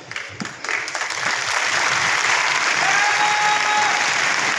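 Large hall audience applauding, the clapping building over the first second and then holding steady.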